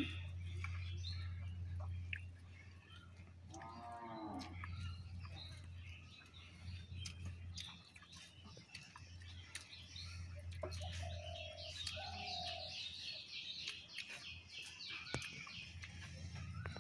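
Outdoor village ambience: birds calling and chirping, with a dense run of high chirps near the end, and one farm animal call about four seconds in. Small clicks from hands and plates while eating come and go over a steady low hum.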